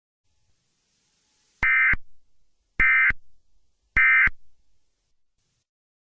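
Three short, identical bursts of Emergency Alert System data tones, about a second and a quarter apart: the end-of-message code that closes an EAS alert.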